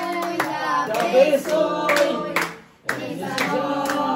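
A small group of adults and children singing together while clapping in time, with a brief break in both singing and clapping about two-thirds of the way through.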